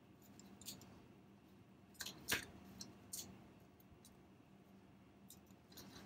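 Faint small clicks and taps of needle-nose pliers against tiny nuts and the plastic camera mount as the nuts are snugged down, with the loudest cluster of clicks about two seconds in and a few more near the end.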